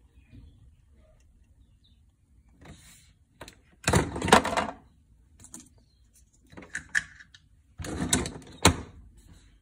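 L'OR Barista capsule coffee machine finishing its hot-water pour into a mug: a faint trickle, then two loud bursts of hissing and sputtering, about four seconds in and again near the end, the second with two sharp clicks.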